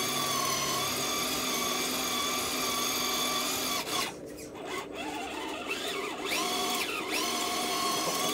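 Electric motor and gearbox of a scale RC crawler whining under throttle as it works through mud. The whine drops off about four seconds in, then rises back up as the throttle is reapplied and holds steady.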